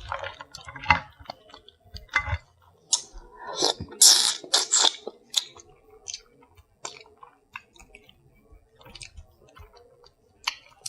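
Close-miked eating of a seafood boil: chewing and wet mouth smacking, with irregular short clicks and a louder burst about four seconds in.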